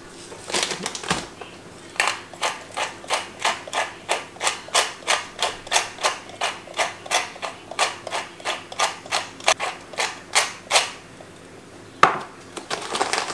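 Hand pepper mill twisted over a bowl of flour: an even run of gritty grinding clicks, about three a second, for roughly nine seconds. A single sharp knock follows near the end.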